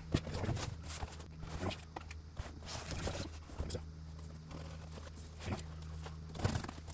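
Cardboard boxes being handled: scuffing and light knocks as a box is lifted out and set down on a wooden tabletop, the loudest knock right at the start. A steady low hum runs underneath.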